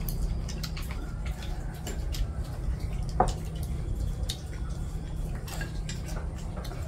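Scattered clinks and taps of eating utensils against bowls and dishes during a meal, with one sharper click about three seconds in, over a steady low hum.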